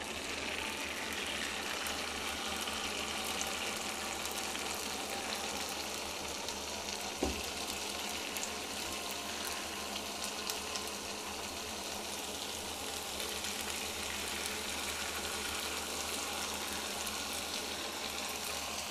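Maida batter, freshly piped in spirals into hot oil in a nonstick pan, frying with a steady sizzle and fine crackling. A single light knock comes about seven seconds in.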